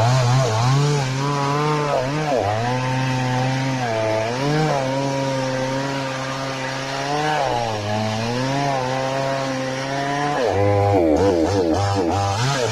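Falcon mini chainsaw's small two-stroke engine running at a high, steady speed, its pitch sagging and recovering several times, with quicker up-and-down wavering near the end.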